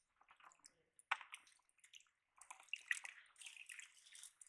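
Faint water splashing and dripping in a bucket as hands move among live fish. There is a sharp splash about a second in, and a busier run of small splashes near the end.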